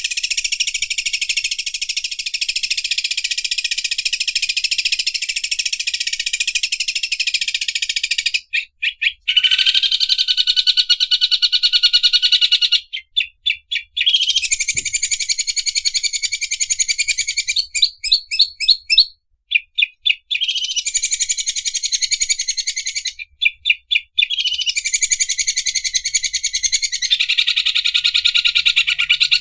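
Greater green leafbird (cucak ijo) singing its 'mesin obras' song, a fast, high, buzzing rattle like an overlock sewing machine. The song comes in runs of several seconds, broken by short pauses and stuttering strings of clipped notes.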